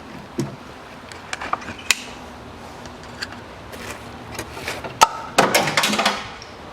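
Metal parts and tools being handled during engine disassembly: scattered light clinks and knocks, then a louder clatter lasting about a second near the end.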